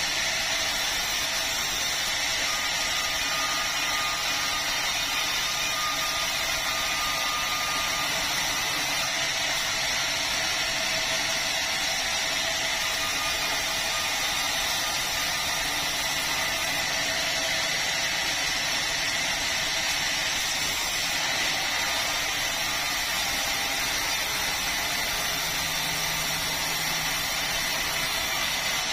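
Chainsaw running steadily under load, cutting through a red meranti log.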